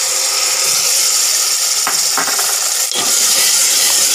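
Hot masala sizzling steadily in an aluminium pressure cooker after a splash of water is poured in, with a steel ladle clinking against the pot a few times as it is stirred.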